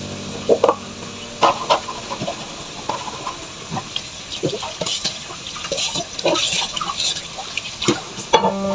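Dishes being washed by hand under a running kitchen tap: water splashing into the sink with irregular clinks and knocks of dishes.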